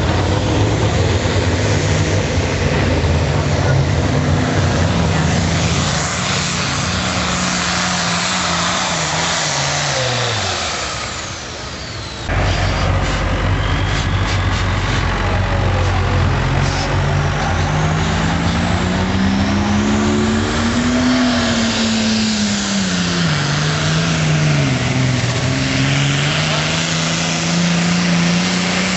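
Hot farm class pulling tractor engine running hard under load. Its pitch holds, then sags and falls away before an abrupt break about twelve seconds in. Then the engine is heard again, climbing, dipping briefly and climbing back to a high steady pitch near the end.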